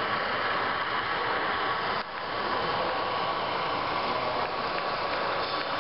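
Steady running sound from the Soundtraxx sound decoders in the HO scale model FP9 diesel locomotives, a diesel engine droning from tiny speakers, mixed into the even din of a busy exhibition hall. The level drops briefly about two seconds in.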